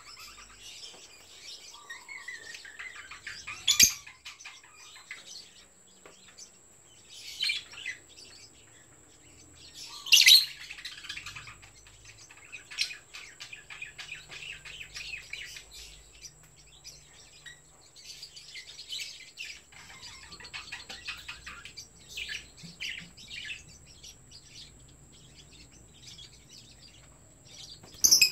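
Lovebirds chirping, with a few loud sharp calls about 4, 7 and 10 seconds in, the loudest around 10 seconds. Between the calls comes a run of fine, rapid clicking, fitting the birds chewing and stripping moringa bark.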